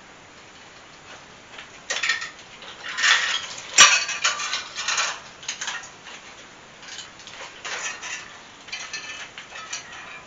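A metal chain and the arms of a welded steel chandelier clinking and rattling in irregular bursts as the chandelier is hung on the chain, with one sharp clank about four seconds in.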